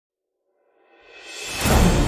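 A rising whoosh sound effect that swells in from silence about a second in and builds into loud intro music.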